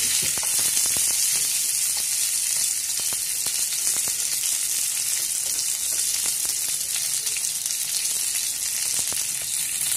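Pointed gourd pieces and whole spices sizzling steadily in hot mustard oil in a kadai, stirred with a wooden spatula that gives faint scrapes and taps against the pan.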